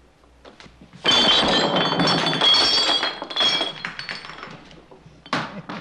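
Many glass mugs clattering and clinking against each other on a wooden bar counter for about two seconds, with ringing high tones, then fading out. A single sharp thud comes near the end.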